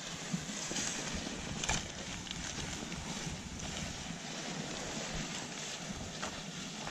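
Wind buffeting the microphone, a steady rushing noise with low rumbles and a brief knock about a second and a half in.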